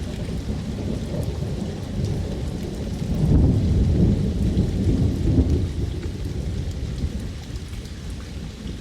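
Rain falling steadily with rolling thunder; the rumble swells about three seconds in and eases off toward the end.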